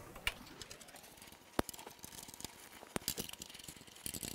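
Light metallic clicks and rattles from a reflow oven's sheet-metal drawer and its telescoping slides being worked by hand. Two sharp clicks stand out, about a second and a half in and about three seconds in, with a flurry of small rattles near the end.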